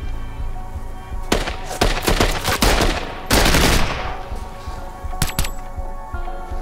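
Rifle gunfire over a music score: a rapid run of shots between about one and three seconds in, a heavier, denser burst near four seconds, then two single shots about a second later.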